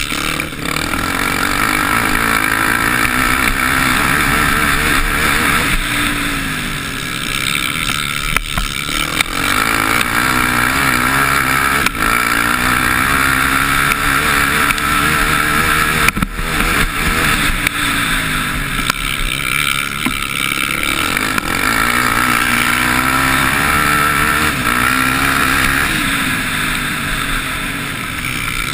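Motocross bike engine heard from a camera mounted on the bike, revving hard and falling back again and again as the rider accelerates and eases off through the turns. A couple of sharp knocks come midway.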